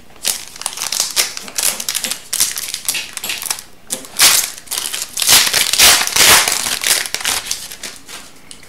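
Foil wrapper of an Upper Deck Series 2 hockey card pack crinkling as it is handled and torn open, loudest about four to six seconds in.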